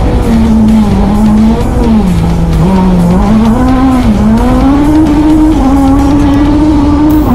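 Rally car engine heard from inside the cabin at full racing speed, its pitch rising and falling repeatedly and dipping sharply a few times, over a steady haze of road noise.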